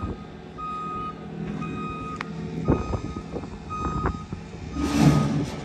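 A truck's reversing alarm beeping about once a second over the truck's engine running, as it backs the trailer. A short, loud hiss comes near the end.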